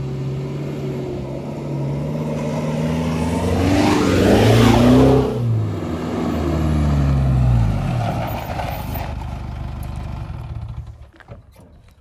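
Isuzu D-Max V-Cross pickup with a stage 2 remapped turbo-diesel engine driving past, the engine and tyre noise building to a peak about five seconds in. Its engine note then drops in pitch and fades away as it moves off.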